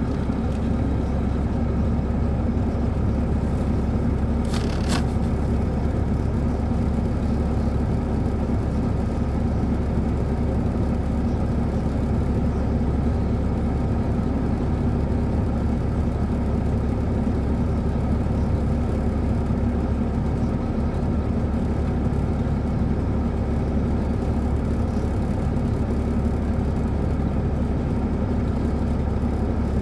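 Caterpillar C13 ACERT diesel engine of a 2007 MCI D4500CL coach running at a steady speed, heard inside the bus, with a low drone and a steady hum. A brief sharp sound cuts in about four and a half seconds in.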